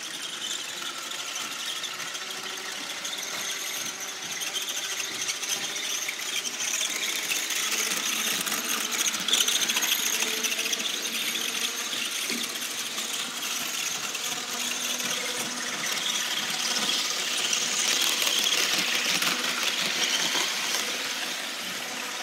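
HO scale model train of Metra bi-level cars running around the layout with a steady high-pitched squeal and squeaking, which the owner traces to one particular car. It grows louder about halfway through and again near the end.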